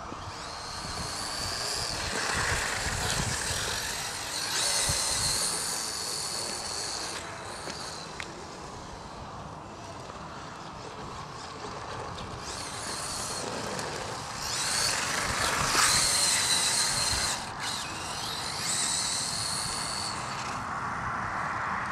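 HPI E-Firestorm 10T RC truck's brushless motor and gears whining high at speed, the whine coming and going in about five spells of a few seconds as the truck makes fast passes, with tyre and wind noise underneath.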